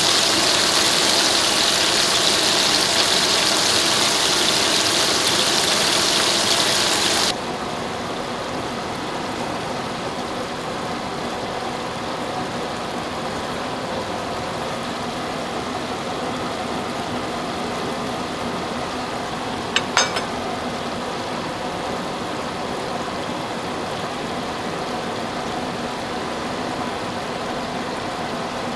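Cheese-topped beef patties sizzling in a frying pan, cutting off suddenly about seven seconds in. After that a steady low hum, with two quick taps about twenty seconds in.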